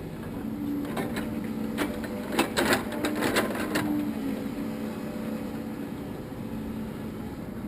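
An engine running steadily, with a string of sharp metallic clicks and clanks in the first four seconds.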